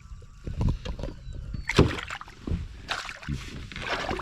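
Water splashing and sloshing at the side of a fishing boat, in several short splashes.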